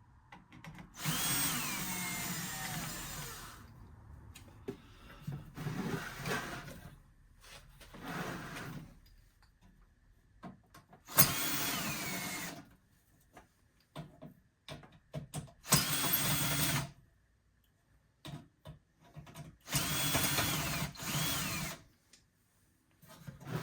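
Power drill run in about six short bursts, backing out the screws that hold the melting furnace's heat shield. Each burst whines, and the whine falls in pitch as the motor winds down. Small clicks and taps come between the bursts.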